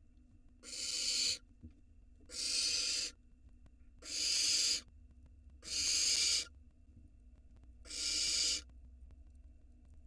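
Barn owl nestlings giving their rasping, hissing food-begging calls: five hoarse hisses, each a little under a second long, repeated about every 1.7 seconds over a faint steady low hum.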